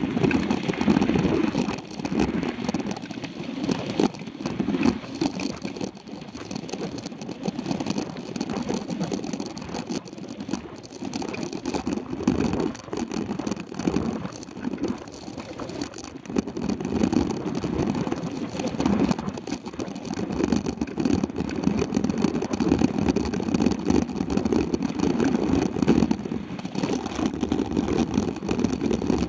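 A mountain bike rolling over a dirt gravel road, heard through a camera mounted on its handlebars: an uneven, surging rumble from the tyres and frame, with frequent small clicks and rattles.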